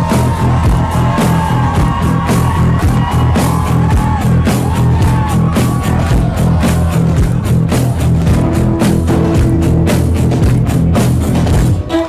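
Background music with a steady driving beat.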